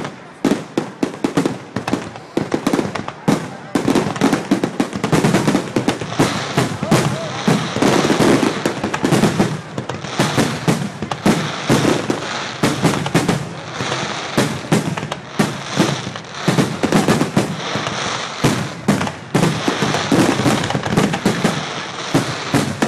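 Fireworks display: aerial shells bursting with rapid, irregular bangs and crackling, several a second.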